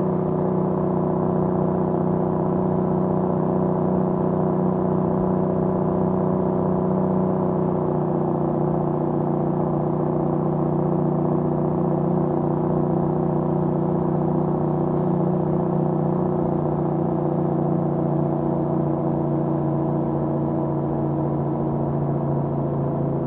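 Diesel engine of a tractor-trailer running loud and steady with the engine brake on, holding the loaded truck back on a steep downhill in fourth gear low range.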